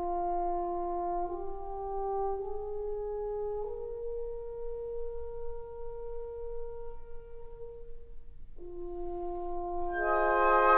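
Background music: a slow melody of long held brass-like notes climbing step by step, one note held for several seconds and fading away. A new phrase starts after it, and more instruments join near the end, louder and fuller.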